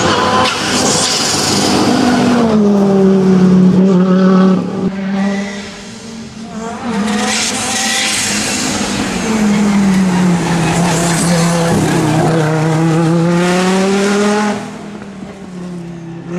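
Audi Quattro S1 rally car's turbocharged five-cylinder engine running hard at stage pace, its pitch sagging and climbing again as the revs change. The sound drops away twice, about five seconds in and near the end, as the throttle is lifted.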